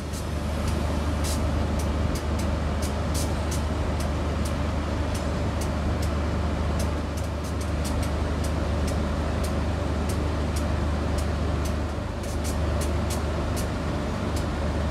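NR class GE diesel-electric locomotive idling while standing, a steady deep engine hum with scattered sharp clicks.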